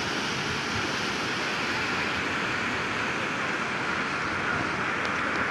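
Steady rushing of a stream spilling over small stone weirs in a walled channel.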